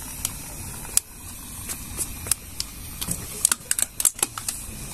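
Plastic water bottle being handled and squeezed, giving irregular sharp crackles and clicks that bunch together about three and a half seconds in, over a steady low rush.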